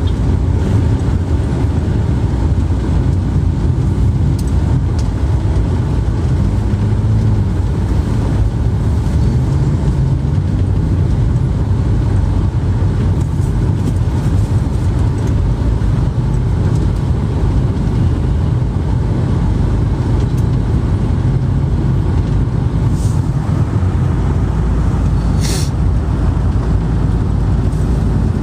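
Steady, loud low rumble of a moving road vehicle, heard from inside, with a short sharp click about three seconds before the end.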